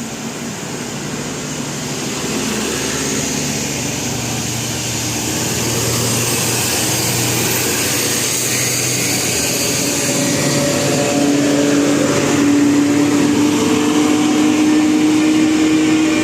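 A road vehicle passing close, its engine and road noise growing louder, with a steady engine drone that rises slightly in pitch over the last few seconds.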